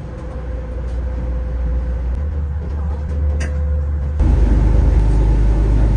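Low rumble aboard a river ferry under way, engine and wind noise, growing louder and stepping up suddenly about four seconds in.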